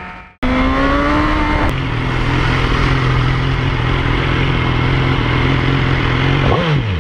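A motorcycle engine fades out at the start, followed by a moment of silence. A motorcycle engine then comes in, pulling up in revs for about a second before running at steady revs, with a quick falling sweep near the end.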